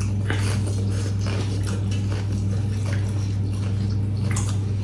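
Chewing and eating sounds from a mukbang of spiced buffalo-meat choila: irregular short wet clicks and crunches of mouths working on the meat, over a steady low hum.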